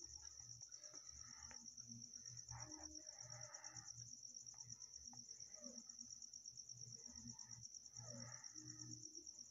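Near silence, with a faint, steady high-pitched trill of crickets in the background.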